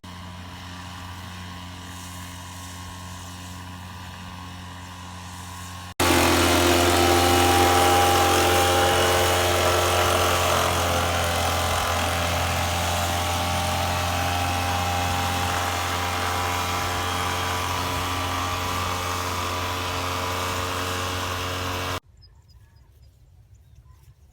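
A small engine running at a steady, unchanging speed. It is quieter at first, jumps much louder about six seconds in, and cuts off abruptly near the end.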